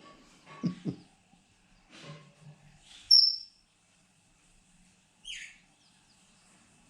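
Caged pet bird giving a few short, sharp, high chirps, the loudest about three seconds in, and a single call that falls in pitch about two-thirds of the way through.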